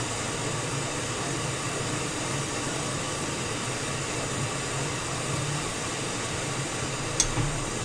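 Hot air rework station blowing a steady hiss of hot air while desoldering a micro USB charging port. A single short click comes near the end.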